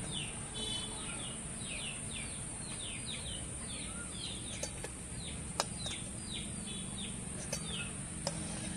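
Birds chirping steadily, a quick series of short downward-sweeping calls, over a low even background noise; a few sharp taps sound around the middle and near the end.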